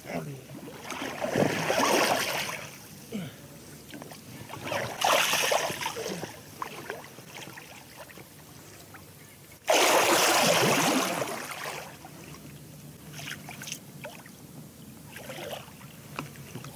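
Water splashing and sloshing beside an inflatable boat as a large wels catfish is held at the surface. It comes in several bursts, and a sudden loud splash starts about ten seconds in and lasts about two seconds.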